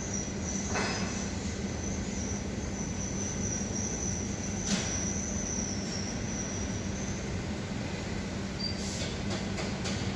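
Concrete mixer with a Topland engine running steadily, with a high squeal that wavers in pitch through the first seven seconds or so. There is a single knock about five seconds in, and a quick run of clicks near the end.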